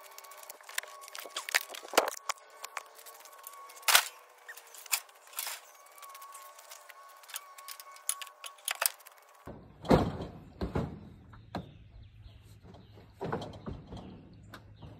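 Ratchet straps being handled and tightened down over a trailer load of scrap light fixtures: scattered sharp clicks, knocks and rattles. A low rumble comes in about two-thirds of the way through.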